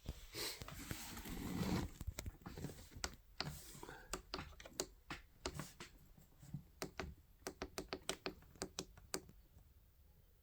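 Handling noise from the drip coffee machine: a loud rustle lasting about two seconds, then a run of irregular, sharp light clicks and taps that thin out toward the end.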